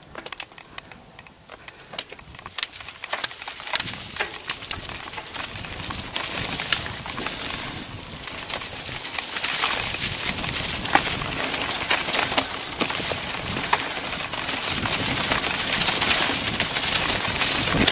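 Mountain bike rolling down a dirt forest trail: tyres crunching over dirt and dry leaves, with many sharp clicks and rattles as the bike runs over bumps. A rushing noise builds steadily louder as the bike picks up speed.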